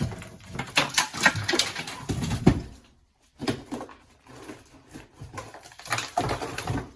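Acoustic ceiling being torn down: a run of knocks, cracks and clattering debris, a brief pause about three seconds in, then more scattered knocks.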